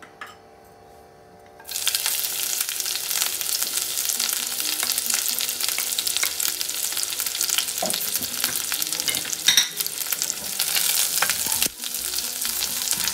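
Chopped garlic and green chilli dropped into hot oil in a nonstick kadai, breaking into a loud sizzle about two seconds in that carries on while a wooden spatula stirs them.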